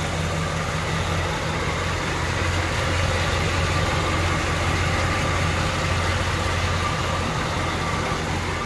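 Chevrolet 327 small-block V8 idling steadily and quietly, an even, unchanging idle.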